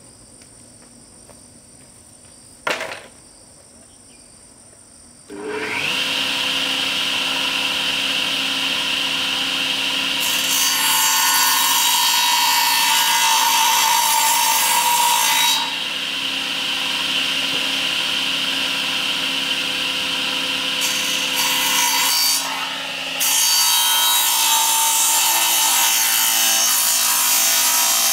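A single knock, then a table saw's electric motor starts about five seconds in and runs with a steady hum. The circular blade cuts through wooden planks twice, each cut louder and hissier than the idle hum.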